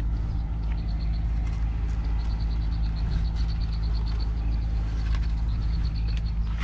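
A small engine running steadily with a low hum. A high, rapidly pulsing chirp sounds over it from about a second in until near the end.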